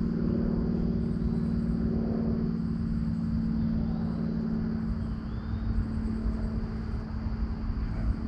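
Steady low hum over an uneven low rumble, the hum strongest for the first few seconds and then fading somewhat.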